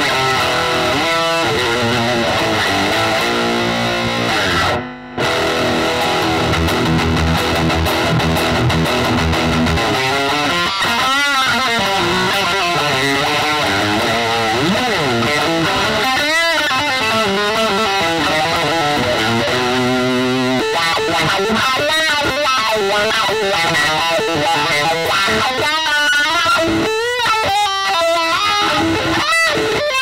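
Electric guitar with P-90 pickups played through an overdriven Marshall tube amp, ringing out lead lines with wide vibrato on held notes. The sound breaks off briefly about five seconds in.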